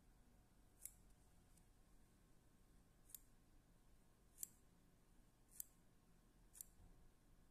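Small scissors snipping through spun deer hair, five short crisp snips at uneven intervals, trimming the hair down to shape the head of a deer-hair fly.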